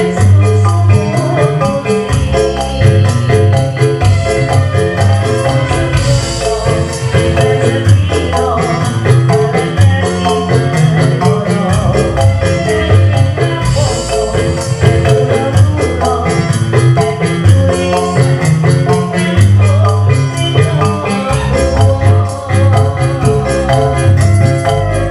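Live Javanese band playing a fast srebegan instrumental passage: a mallet-struck metallophone melody over a rapid, even drum and tambourine beat and a moving bass line.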